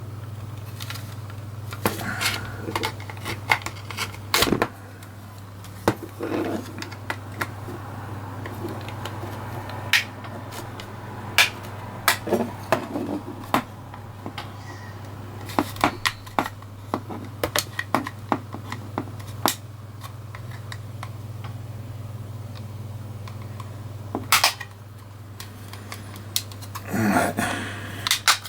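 Plastic clips of a TV remote control's case clicking and snapping as the case is prised apart with a metal spudger: sharp, irregular clicks with handling noise between them, over a steady low hum.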